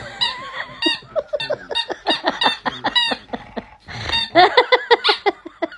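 A dog chewing a squeaky toy bone, its squeaker squealing in quick, pitch-bending squeaks several times a second, loudest over the last second and a half.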